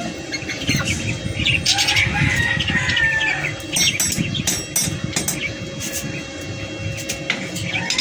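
A chicken calling twice with drawn-out falling notes, over a steady hum, with scattered sharp metallic clicks and taps from a hammer and welding electrode working on steel bars.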